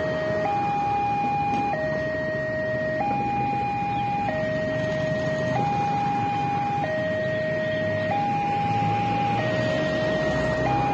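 Railway level-crossing warning alarm from the loudspeaker on the crossing signal post, a two-tone hi-lo signal switching pitch about every 1.3 seconds: the warning that a train is approaching and the barrier is closed. A low rumble of road traffic runs underneath.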